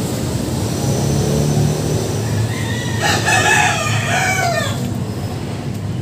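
A rooster crowing once, a single drawn-out call of about two seconds starting about halfway through, over a steady low rumble.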